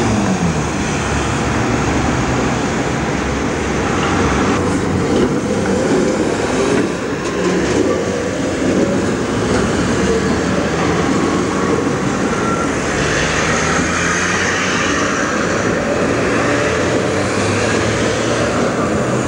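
Rail vehicles rolling through a street crossing where the railway meets the tramway: a steady rumble of wheels on track, with a run of sharp clicks over the rail joints a few seconds in.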